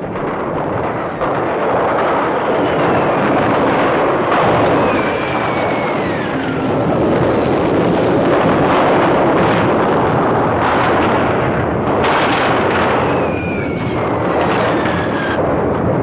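Air-raid sound effects on a film soundtrack: a continuous din of bombing and anti-aircraft gunfire, with a high whistle falling in pitch about five seconds in and again near the end.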